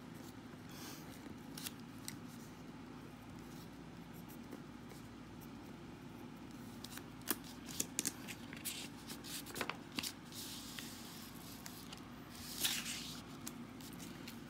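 Pen writing on paper, with short scratches and taps in the second half and a rustle of paper sheets being moved near the end, over a low steady hum.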